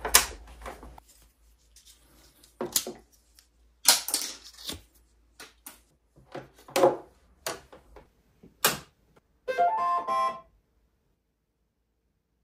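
Sharp plastic clicks and knocks as cables and parts of a Bambu Lab A1 3D printer are handled and fitted. About ten seconds in, a brief electronic melody of a few quick notes plays: the printer's power-on tune.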